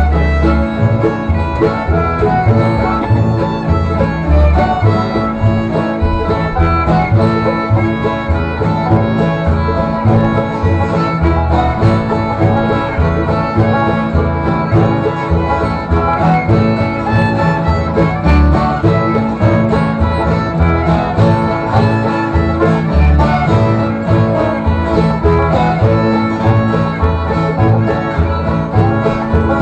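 Acoustic bluegrass jam: a fiddle carrying the tune over strummed acoustic guitars and an upright bass thumping out a steady beat.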